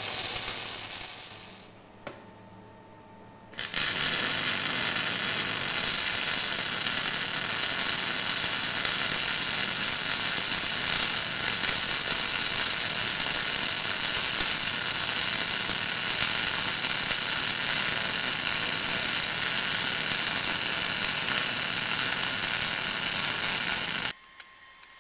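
MIG welding arc on steel plate, from a TecArc OptiArc EMIG400 MST set at about 225 A and 25 V. A steady crackling hiss starts about four seconds in, runs about twenty seconds as one long bead, and cuts off abruptly. The tail of a previous weld fades out in the first two seconds.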